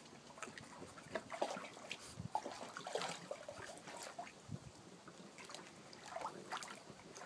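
A French bulldog wading through shallow water in an inflatable paddling pool: irregular splashing and sloshing around its legs as it walks.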